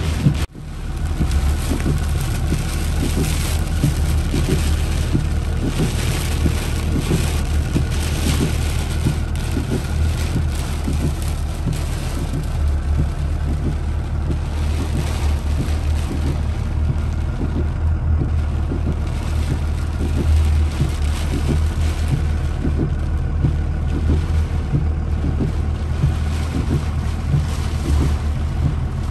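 Storm rain and wind beating on a car, heard from inside the cabin as it drives slowly through flooded streets, over a steady low rumble of engine and wind.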